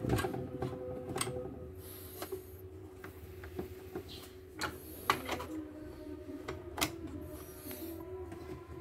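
Scattered sharp clicks and knocks at irregular intervals around a CNY portable embroidery machine, over a faint steady hum.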